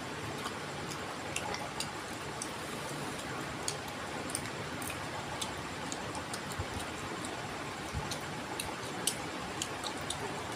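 A person eating a chicken leg piece by hand and chewing, heard as scattered small clicks and mouth smacks over a steady background hiss.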